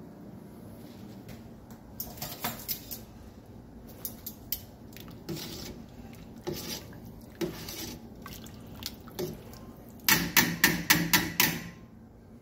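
A long utensil stirring soup in a stainless steel stock pot, knocking against the pot now and then, then a quick run of about eight sharp, loud knocks near the end.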